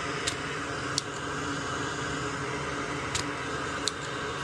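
Steady whirring background hum, broken by four short sharp clicks of metal tools on a circuit board while a transistor is desoldered.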